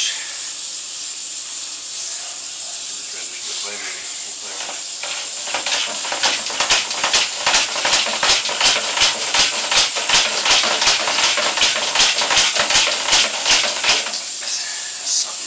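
Sewer inspection camera's push cable being fed into a 4-inch cast iron drain line, making a quick run of rasping strokes, about four a second, over a steady hiss.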